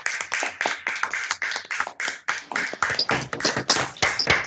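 Applause over a video call: several people clapping through their microphones, the claps fast and irregular.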